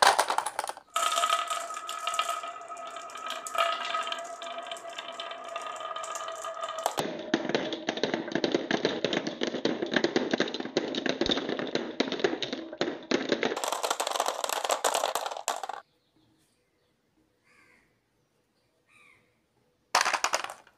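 Many glass marbles rolling down a grooved wooden wave track and clattering into a plastic toy truck bed, as a dense stream of rattling clicks with a ringing tone in the first part. It cuts off suddenly about 16 seconds in, and a short burst of clatter follows near the end.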